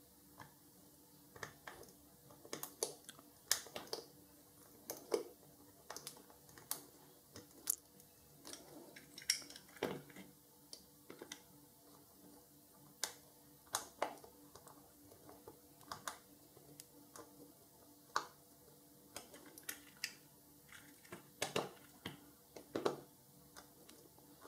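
Drill bit in a wooden hand-held handle twisted by hand against the rivet of a diecast toy car's base, giving faint, irregular clicks and scrapes of steel on the rivet's metal as the rivet head is drilled out without a power drill.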